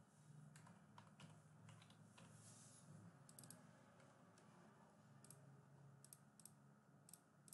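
Faint computer keyboard typing and mouse clicks, scattered and irregular, some in quick pairs, over a faint steady low hum.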